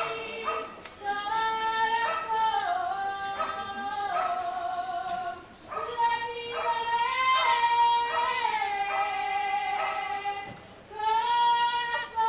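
A solo voice singing long, held, wavering phrases with no instruments, sliding down in pitch at the ends of phrases and breaking for breath about five seconds in and again near the end.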